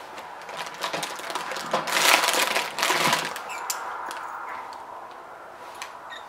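Hog ring pliers and wire grid panels clicking and rattling as a hog ring is worked onto the panels. The clatter is loudest about two to three seconds in, then thins to a few light ticks.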